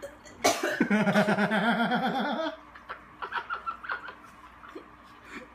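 A person laughing loudly in a pulsing run for about two seconds, then a few short, quieter bursts of laughter.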